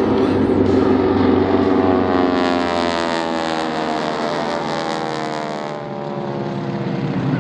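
Formation of propeller-driven aerobatic airplanes flying past overhead, their engine drone gliding down in pitch as they pass, fading briefly about six seconds in and building again near the end.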